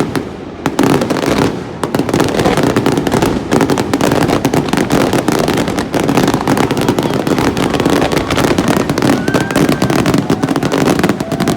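Aerial fireworks crackling: a dense, unbroken rattle of many small rapid pops and bursts.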